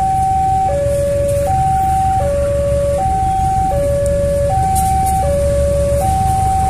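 Railway level-crossing warning alarm sounding a steady two-tone hi-lo signal, each tone held about three quarters of a second, warning of an approaching train. Under it runs a steady low rumble from the oncoming train.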